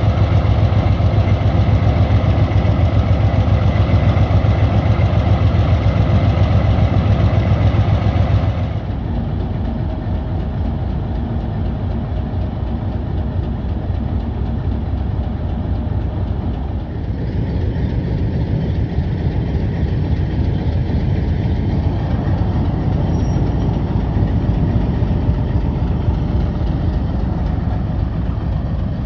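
Diesel locomotive engine running close by, a loud, steady low rumble. It drops noticeably in level about nine seconds in and carries on steadily.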